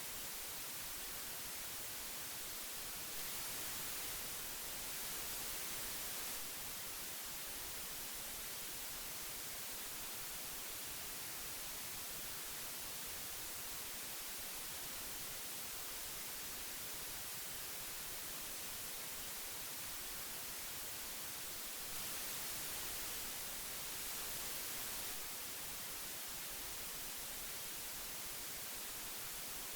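Old analog tape hiss: a steady, even hiss, brightest in the high end, swelling slightly twice for a few seconds.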